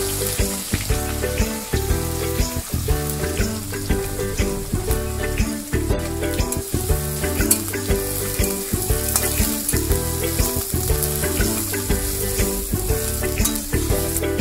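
Sliced onions sizzling in hot oil in a metal kadai, stirred and scraped with a flat metal spatula in repeated strokes. Background music plays underneath.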